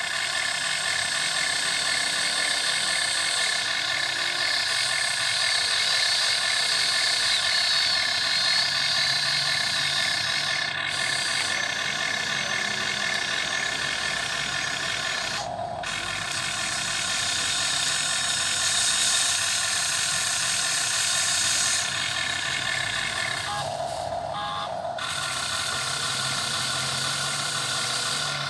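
Motors and gearboxes of a radio-controlled model excavator whining steadily as it works. The whine cuts out briefly about halfway through and twice more in quick succession near the end.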